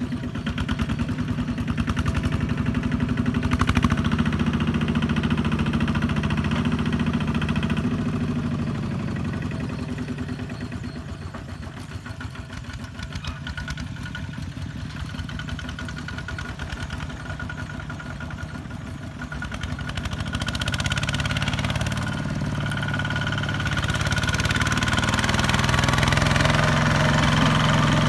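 Single-cylinder diesel engine of a Kubota ZT-140 two-wheel walking tractor chugging steadily as it pulls a loaded trailer. It fades somewhat in the middle and grows louder again near the end as the tractor comes close.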